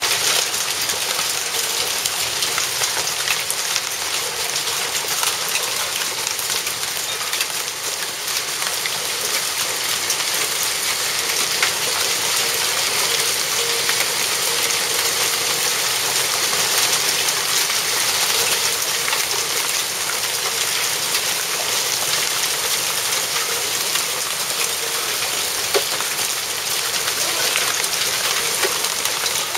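Heavy hail mixed with pouring rain, hailstones pattering densely and steadily on leaves and a wall ledge.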